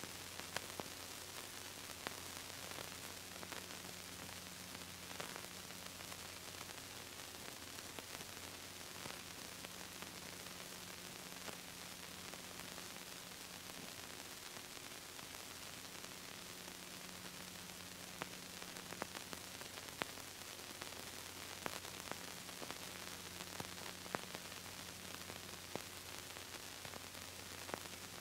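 Steady hiss and static with a low electrical hum and scattered faint clicks, more of them in the second half. This is the noise floor of an old videotape transfer; no explosion sound is heard.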